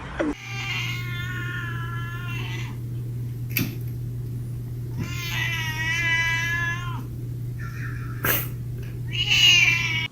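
A cat meowing in three long drawn-out calls over a steady low hum, with two sharp clicks in between.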